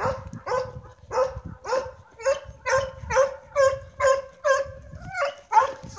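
Dog barking over and over, a little over two barks a second, each bark short and at much the same pitch.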